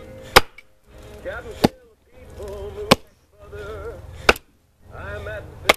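Five hard chopping blows of a hand tool into a fallen log, evenly spaced about one every 1.3 seconds, with old-time singing from a music player between the blows.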